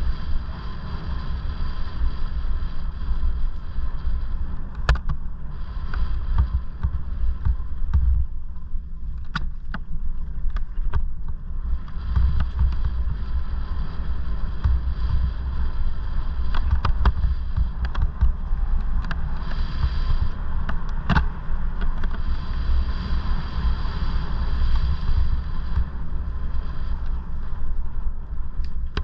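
Wind rumble on the helmet microphone while riding an electric mountain bike over a rough, rutted track, with the steady whine of its Bafang BBSHD mid-drive motor, which cuts out for a few seconds about eight seconds in. Scattered knocks and rattles from the bike over stones and ruts.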